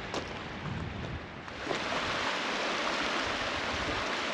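Steady rush of a shallow river running over rocks in a riffle. It becomes louder about a second and a half in.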